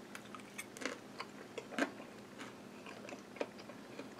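A person chewing a mouthful of baked squash crepe, with irregular soft clicks and smacks of the mouth, the loudest a little under two seconds in.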